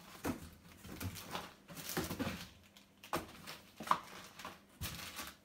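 Intermittent rustling and soft knocks as plastic-wrapped craft supplies are handled and set down on a wooden table.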